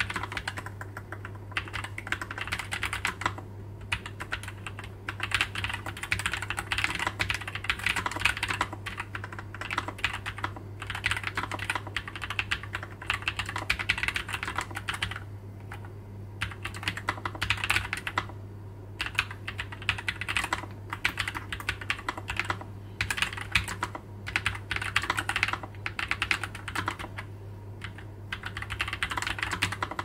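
Typing on a NuPhy Air96 low-profile mechanical keyboard with Gateron x NuPhy Low-profile 2.0 Daisy linear switches and nSA doubleshot PBT keycaps: quick runs of keystrokes broken by several brief pauses.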